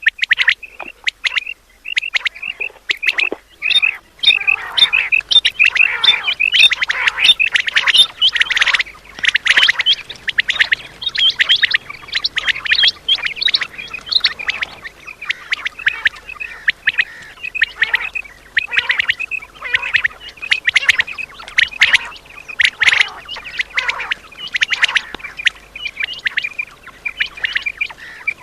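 Quail calling over and over in short, sharp repeated calls. From about four seconds in, many calls overlap into a dense chorus.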